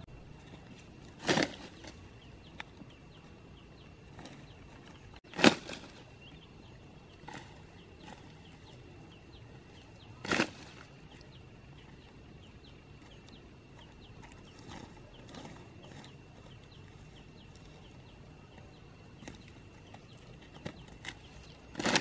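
Armfuls of dry sticks thrown down onto a pile, landing with a clatter four times, the loudest about five seconds in, with a few lighter clicks between. A faint steady high tone runs underneath.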